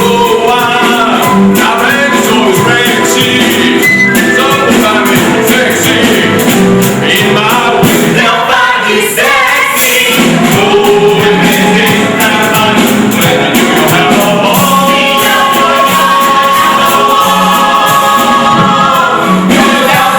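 Amateur theatre cast singing a musical number together as a chorus over instrumental accompaniment, loud and unbroken.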